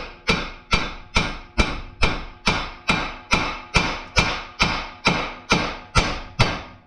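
Hammer striking the steel front steering knuckle of a 2014 Ford Fiesta: about fifteen evenly spaced blows, a little over two a second, each ringing briefly, stopping near the end. The blows shock the tie rod end's tapered stud loose from the knuckle, done in place of a puller tool.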